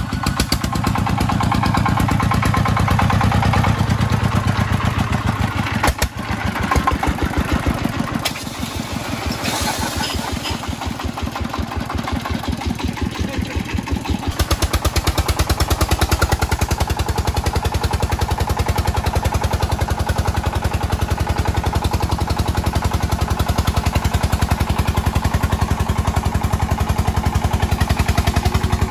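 Single-cylinder diesel engine of a công nông farm truck chugging in a fast, even beat as the truck drives through deep mud. About halfway through, the beat settles steadier.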